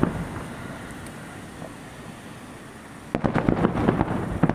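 Aerial fireworks display. The sound of earlier bursts fades over the first three seconds. Then, about three seconds in, a rapid volley of shell bursts sets in: many sharp bangs and crackles close together.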